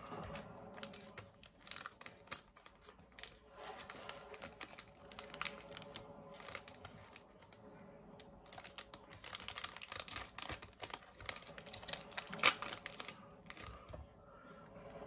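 Yu-Gi-Oh trading cards being handled close to the microphone: a rapid run of small clicks and rustles, thickest and loudest about two-thirds of the way through.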